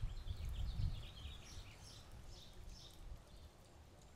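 Small birds chirping in quick, short notes over a faint low rumble that fades out in the first few seconds.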